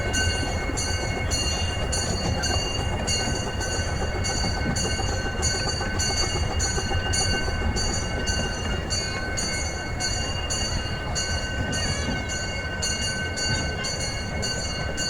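Miniature steam train rolling along its track, heard from aboard: a steady rumble with thin, steady high ringing tones over it and an even, high ticking about three times a second.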